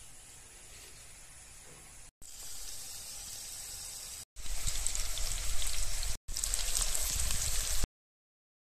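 Oat-coated chicken pieces deep-frying in hot oil, sizzling steadily. The sizzle comes in short edited clips, louder after about four seconds, and cuts off suddenly near the end.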